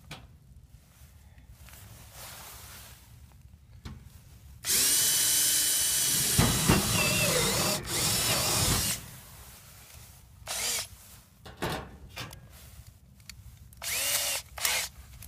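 Power drill boring a hole through corrugated sheet-metal siding: one long run of about four seconds, its pitch wavering as the bit bites, then three short bursts near the end.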